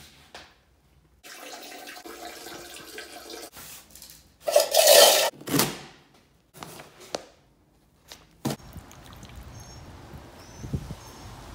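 A toilet being flushed, its water rushing and draining, with a louder surge about five seconds in. A few sharp knocks follow.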